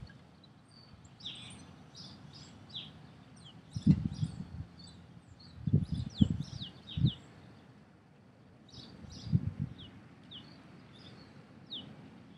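Small birds chirping in short, quick notes throughout, with several clusters of low thumps, the loudest about four, six and nine seconds in.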